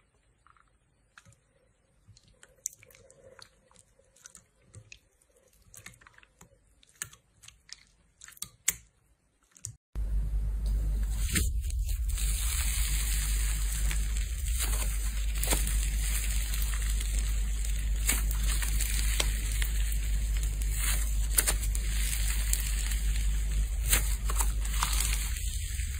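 Faint wet squishes and clicks of hands pressing into clear jelly slime in a bowl. About ten seconds in it jumps to a much louder steady hiss and low hum, with dense crackling as white cloud slime is squeezed and pulled apart.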